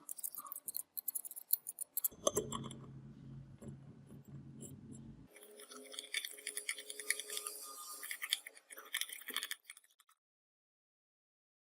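Metal clinking and rattling, as of the steel chain and parts of a chain wrench being handled. A low steady hum runs for about three seconds in the middle, and everything stops about ten seconds in.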